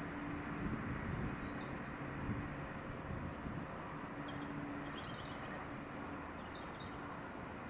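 Small birds chirping in short bursts over a steady low rumble, with a low hum that comes and goes.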